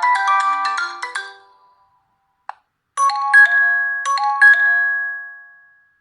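Nokia G20 built-in ringtones: a fast run of bright melodic notes fades out in the first second and a half, a short click follows, then the next tone starts, a rising two-note chime played twice about a second apart, its last note ringing on as it fades.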